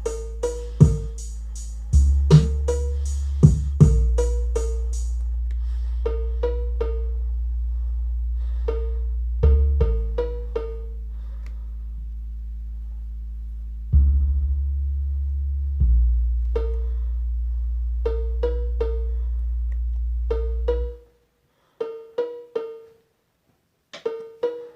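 Cowbell struck repeatedly in short rhythmic clusters over low held bass notes that shift a few times. The bass stops cleanly about three-quarters of the way through, leaving only a few sparse cowbell strikes.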